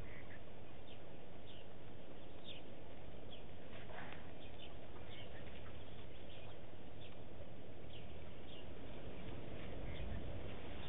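Wild birds calling with many short, scattered chirps, one a rising call about four seconds in, over a steady low background hiss of outdoor ambience. A low rumble briefly swells near the end.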